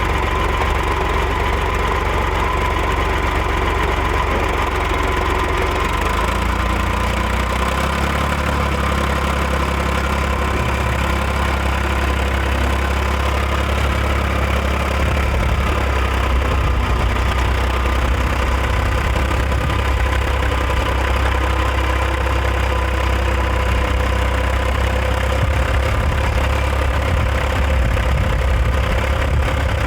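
Backhoe engine running steadily, its note shifting about a quarter of the way in and again about halfway through.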